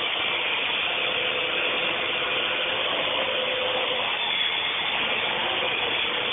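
Parrot AR.Drone quadcopter hovering, its four small electric motors and geared propeller drives giving a steady, even whirring buzz with a faint constant hum.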